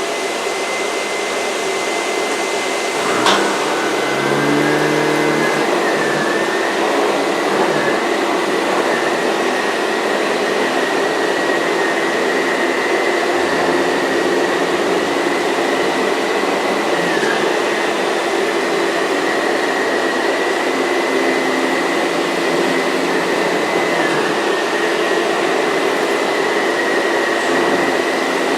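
Vintage Miele S234i canister vacuum running steadily with a high motor whine, driving a Sebo ET-1 powerhead, with a sharp click about three seconds in. The whine's pitch dips briefly a few times as the load on the motor changes.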